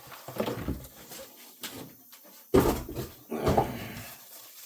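Unboxing handling noise: an RC car being lifted out of its cardboard box, with rustling and scraping and several knocks of plastic against cardboard, the loudest a little past the middle and another about a second later.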